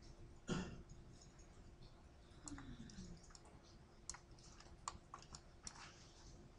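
Faint, scattered clicks of a computer mouse and keyboard, a handful spread over a few seconds, over a low steady hum of room tone. A brief rush of noise about half a second in is the loudest moment.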